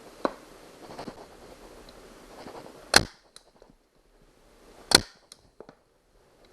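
Harbor Freight FastenPro 3-way manual staple gun fired twice, two sharp snaps about two seconds apart, driving staples through a vinyl cover into a plywood seat base. A few lighter knocks of handling come before the shots.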